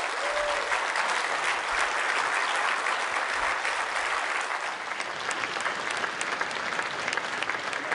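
Audience applauding, a dense, steady run of many hands clapping that eases off slightly toward the end.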